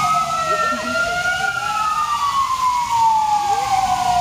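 Fire engine's wailing siren going by. Its pitch rises for about a second and a half, falls slowly until near the end, then starts to rise again.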